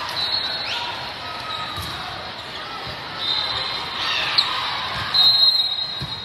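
Sound of a big hall with several volleyball courts going at once: balls being hit and bouncing, and a steady background of crowd chatter with the hall's echo. Three short, high referee-whistle blasts come at the start, a little past the middle, and near the end; the last is the loudest sound.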